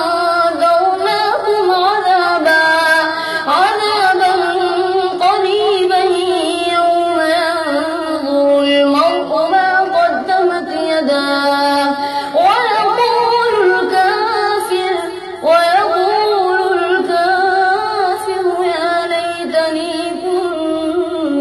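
A boy's high voice reciting the Quran aloud in a drawn-out, melodic chant, the pitch sliding and ornamenting through long held phrases, with a short breath about fifteen seconds in.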